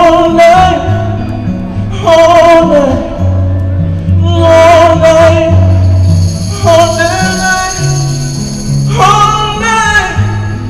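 Live soulful R&B song: a male lead singer sings phrases into a microphone over a band with acoustic guitar and a bass line, and a woman sings backup.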